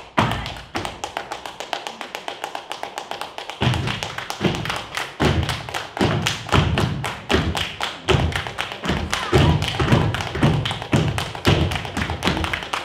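Rhythmic flamenco-style hand clapping (palmas), fast and even at about six claps a second. From about three and a half seconds in, dancers' feet stamp heavily on the stage, roughly twice a second.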